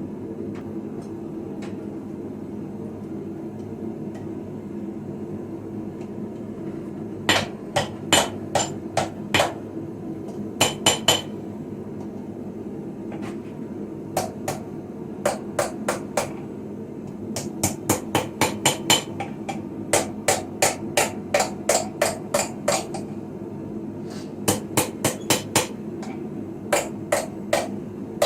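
Hand hammer striking on an anvil while forging a sickle blade: after a steady hum alone, runs of sharp ringing blows at about two to three a second begin about seven seconds in, broken by short pauses. A steady low hum continues beneath.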